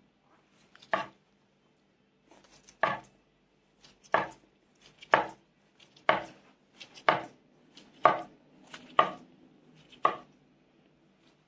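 Kitchen knife cutting a futomaki sushi roll into pieces, each slice ending in a knock of the blade on the chopping board. About nine cuts, roughly one a second.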